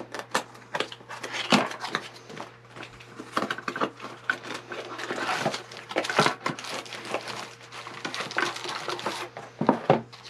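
Cardboard product box being opened and its packed contents slid out and handled: irregular rustling, scraping and light clatter of cardboard and parts, with plastic packaging crinkling near the end.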